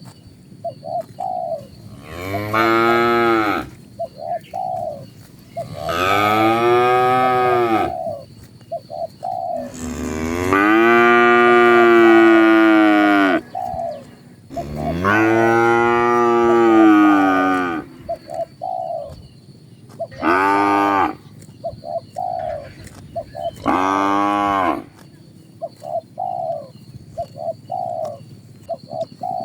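Cattle mooing: six long, drawn-out moos, each rising and then falling in pitch, the longest about three seconds starting some ten seconds in and two short ones near the end. Between the moos a bird calls in short notes, repeated in little groups.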